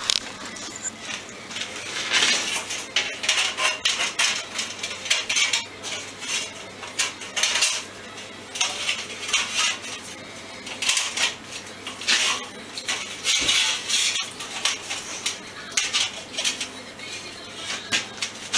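A cut sheet-metal repair piece being handled and clamped in a bench vise: irregular metallic clanks, rattles and scrapes of thin metal against the vise and bench.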